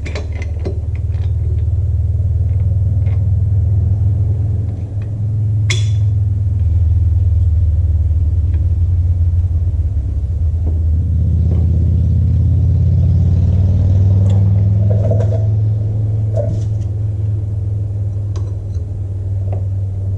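A loud, steady low rumble from an unseen running machine, with a few light metal clicks and clinks of wrench work on the tractor's power take-off, a sharper clink about six seconds in.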